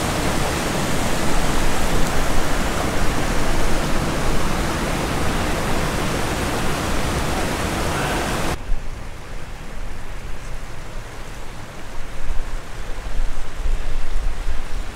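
Mountain stream rushing over rocks, a loud steady hiss of water that stops abruptly about eight and a half seconds in. After that, gusty wind buffets the microphone with a low rumble.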